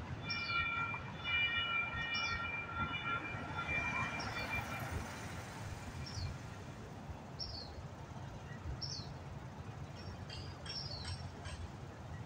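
Railroad crossing warning bell ringing in repeated strokes for the first five seconds or so, then falling silent, with small birds chirping throughout over a low traffic rumble.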